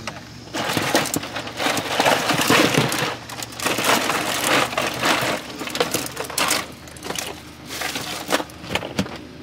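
Rummaging for a drink: plastic bags and bottles rustling and crinkling, with irregular clicks and knocks.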